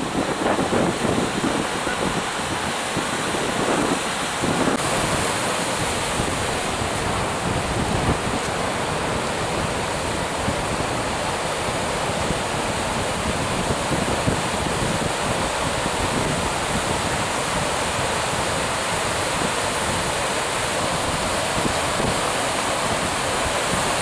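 Sea surf breaking and washing over rocks and shallows, a steady rushing; the sound changes abruptly about five seconds in.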